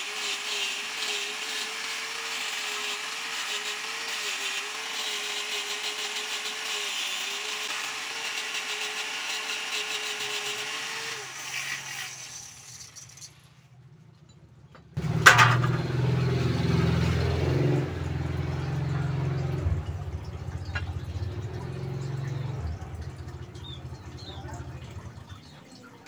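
Angle grinder with a sanding pad running and sanding a teak knife handle, a steady whine with hiss, then winding down and stopping about twelve seconds in. After a short quiet, a knock and a louder low drone start about fifteen seconds in and run until near the end.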